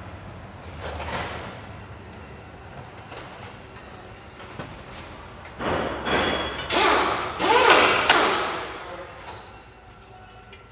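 Bursts of tool noise from fastening a car's clutch pressure-plate bolts. There is one burst about a second in and a louder cluster of several bursts about two-thirds of the way through.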